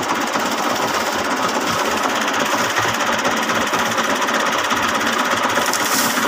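Tractor-PTO-driven wheat thresher running steadily, its drum and belt pulleys turning with a fast, even clatter over the tractor's diesel engine working under load at about 1800 rpm.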